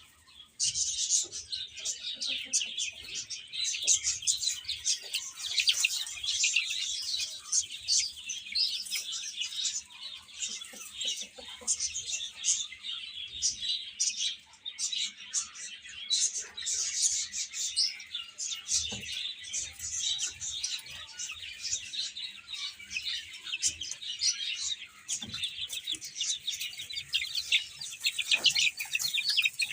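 A group of baby chicks peeping nonstop, many short, high calls overlapping one another.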